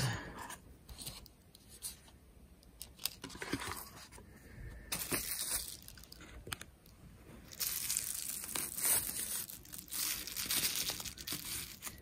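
Packaging being handled: cardboard box taps and scrapes, then longer hissy rustling from about the middle on as a knife is worked out of its white foam wrap.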